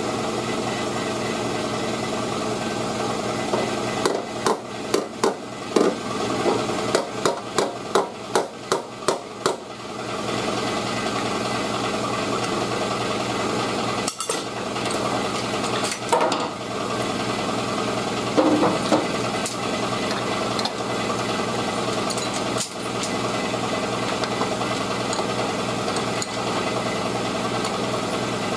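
Body hammer striking a damaged steel car body panel while a chain holds it under pull: a run of about a dozen sharp blows, about two a second, starting about four seconds in, then a few single knocks later. A steady mechanical hum runs underneath.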